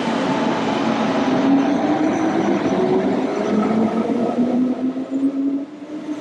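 DB class ET 420 S-Bahn electric multiple unit accelerating out of a station: the traction motors' howl, a whine that climbs as the train gathers speed over the rumble of the wheels on the rails.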